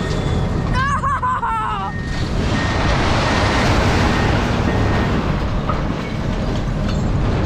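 A heavy vehicle's engine running with a loud, steady low rumble and a clattering rattle. A brief warbling chirp sounds about a second in.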